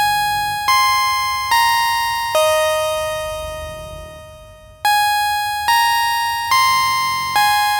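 Background music: a simple bell-like electronic melody of single struck notes that each ring and fade. The fourth note is held for about two and a half seconds before the tune goes on.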